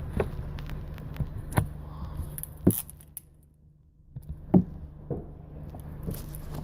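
A few sharp knocks and clicks, scattered over several seconds, over a steady low hum, with a brief quiet gap in the middle.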